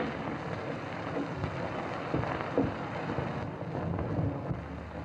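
Steady hiss and crackle of a worn 1930s optical film soundtrack, with a few faint knocks and pops scattered through it.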